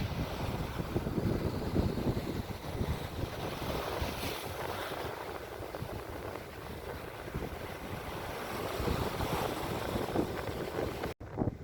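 Steady wind buffeting the microphone, with a rushing, wave-like noise of the open sea from a ship at sea.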